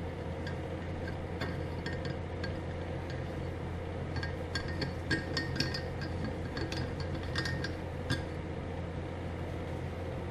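Light metallic clinks and taps of a slide-hammer blind bearing puller being worked into a Lambretta TV175 disc brake hub and lined up behind the wheel bearing, over a steady low hum.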